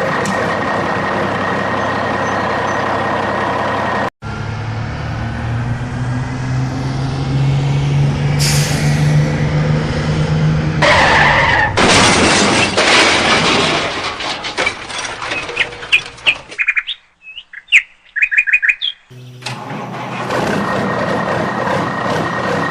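Vehicle engine sound effects, cut together: a steady engine hum breaks off sharply, then an engine rises in pitch, followed by a loud noisy stretch. Then come a few seconds of short bird chirps, and the steady engine hum returns.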